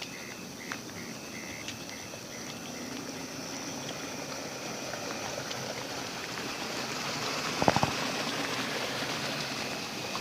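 Night-time insects chirping steadily, with a rapid pulsed call in the first few seconds. A rushing hiss swells from about halfway, and a brief cluster of knocks comes near the end.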